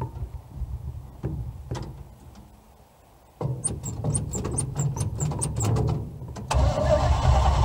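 1978 Chevy K30 truck engine running after a cold start. The low rumble fades away about two to three seconds in, comes back abruptly with a run of light clicks, and jumps louder again near the end.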